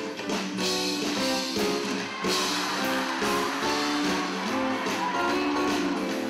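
Live band playing an instrumental passage: strummed acoustic guitars over a bass guitar, in a steady rhythm.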